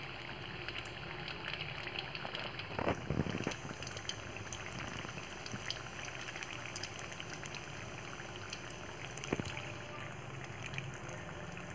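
Cucur ringgit batter deep-frying in hot oil in a wok: a steady sizzle with small crackles, briefly louder about three seconds in.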